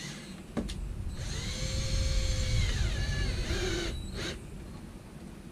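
Cordless drill driving a screw into the wooden wall: the motor whines steadily for about two and a half seconds, its pitch dropping near the end as the screw draws tight, then gives one short final burst.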